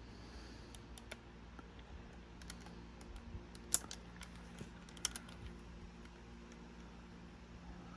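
Faint scattered clicks and taps of small plastic parts being handled while a smaller rubber drive belt is fitted to a cassette Walkman's mechanism, the sharpest click a little under four seconds in and another pair about five seconds in.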